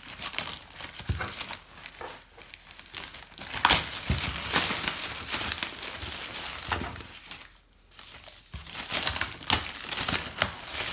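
Thin plastic mailing bag being torn open and pulled off a cardboard box: a continuous crinkling and crackling of plastic, loudest from about four seconds in, with a brief pause near eight seconds before it starts again.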